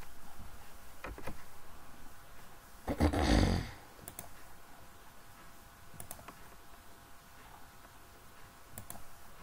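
Computer mouse clicks, mostly in quick pairs a couple of seconds apart. A short, loud rushing noise about three seconds in is the loudest sound.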